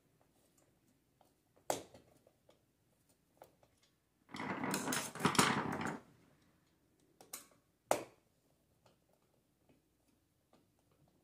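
Hand screwdriver fastening a reupholstered seat to a metal chair frame: light ticks and a few sharp clicks of tool and screw against the metal, with a louder rustling scrape lasting about two seconds near the middle.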